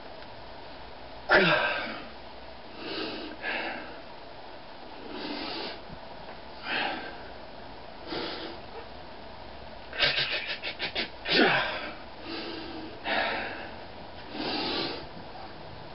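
A man's forceful breaths and grunts while straining to bend a steel nail by hand: sharp exhalations every second or two. A short grunt falling in pitch comes about a second in, a quick run of short puffs around ten seconds in, then another falling grunt just after.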